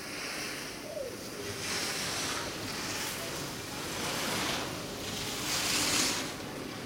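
Alpine skis carving turns on hard-packed snow: the edges scrape with a swishing hiss that swells with each turn, about five times in a row, the last one loudest.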